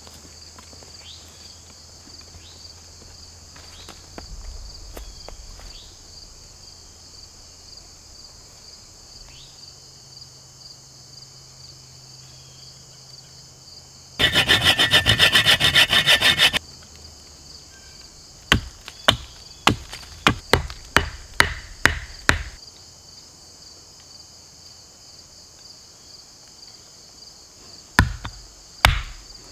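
Insects buzzing steadily in summer woodland. About halfway through, a loud rasping of about two and a half seconds like a saw cutting through wood, then a run of sharp wooden knocks about two a second, and near the end two heavy axe strikes into a log.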